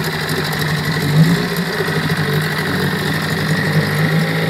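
Evinrude 6 hp two-stroke outboard motor running steadily at an even speed, its lower unit in a test barrel of water.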